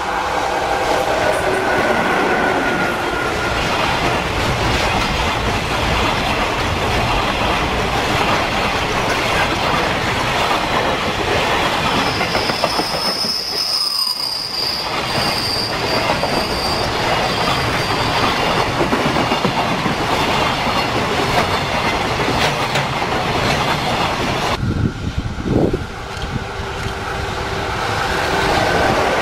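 A JR Freight container train passing close by: a steady rumble and clatter of wagon wheels on the rails, with a high thin wheel squeal in the middle. Near the end the sound cuts abruptly to another freight train approaching, rising in level.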